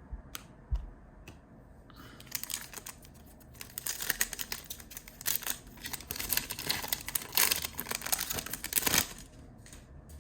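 Foil wrapper of a Panini Prizm basketball card pack being torn open and crinkled: a few light clicks, then dense crackling from about two seconds in until about nine seconds.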